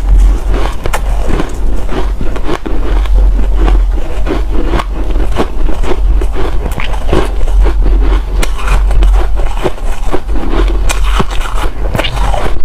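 Ice being bitten and crunched close to the microphone: a rapid, irregular run of crisp cracks and crunches over a steady low hum.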